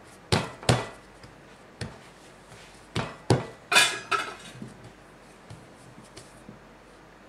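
Hands slapping and patting a round of risen pandesal bread dough flat on a floured silicone baking mat: about six sharp slaps in the first four seconds, then only a few faint knocks.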